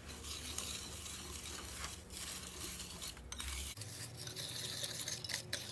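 Whisk stirring dry powder in a big bowl: a steady scratchy rustle with a few brief pauses.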